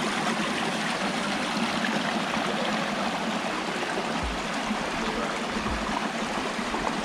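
Steady rush of a mountain stream or small cascade, an even wash of water noise. Three short low thuds come in the second half.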